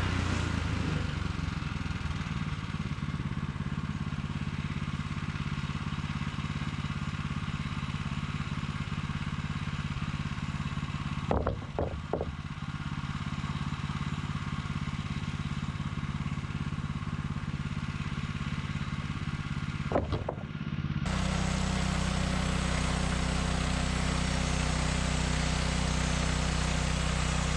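Gas engine of a Woodland Mills portable bandsaw sawmill running steadily. A few sharp knocks come about halfway through and again near 20 seconds in. About 21 seconds in the sound turns louder and hissier.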